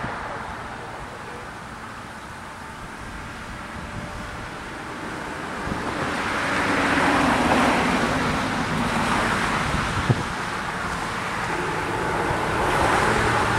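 Road traffic going by, with cars passing as swells of tyre and engine noise, one about six to eight seconds in and another near the end. A single sharp click comes about ten seconds in.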